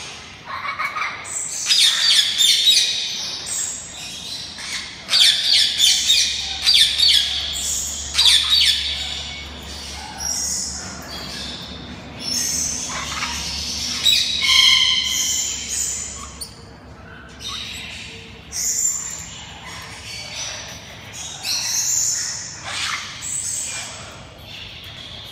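Yellow-faced parrots (Poicephalus flavifrons) calling: a run of harsh squawks mixed with shrill whistled notes, loudest and most frequent in the first half, then sparser and quieter, with a few more calls near the end.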